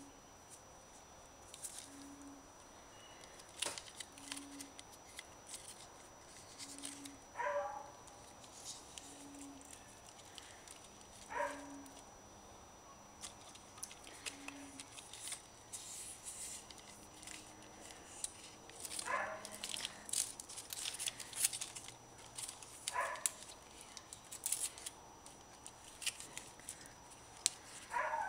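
Wiring harness and plastic connectors crackling and clicking as they are handled and moved. A short falling call sounds five times at irregular spacing, and a faint low beep repeats about every two and a half seconds through the first half.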